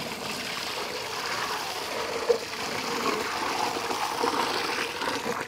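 Water running and splashing over a plucked turkey as it is washed.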